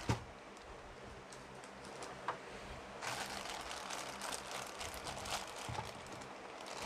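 Faint handling of a sealed cardboard figure box as it is opened: a few small clicks, then scratchy rustling of card and packaging from about three seconds in.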